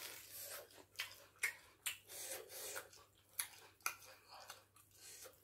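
Close, wet eating sounds of yam and plantain fufu eaten by hand: the soft dough is pinched and squished between the fingers and chewed, with a run of sharp sticky clicks and smacks.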